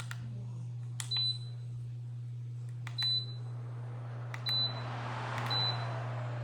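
Bladeless tower fan's control panel beeping four times, each short high beep following a click as a setting is changed, over a steady low hum. A rush of air noise swells near the end.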